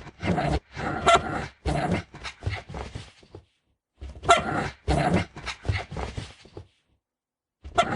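Dog barking in runs of quick barks, with a short pause between runs and a new run starting near the end.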